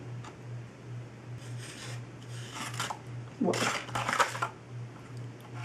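Paper rustling as a card and a tissue-lined cardboard box are handled, in a few short bursts that are loudest about three and a half to four and a half seconds in. Underneath is a faint low hum that pulses about twice a second.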